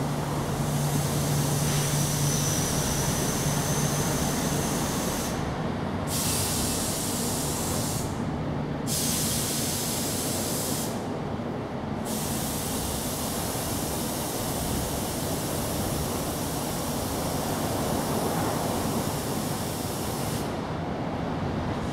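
Steady outdoor background rush, with a high hiss on top that stops briefly several times and a low hum during the first few seconds.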